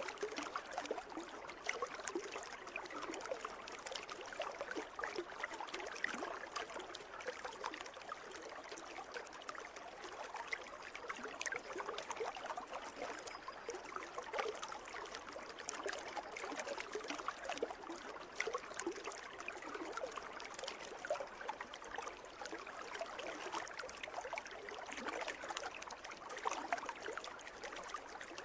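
Water in a swimming pool, moving steadily with a dense, constant patter of small splashes and trickles.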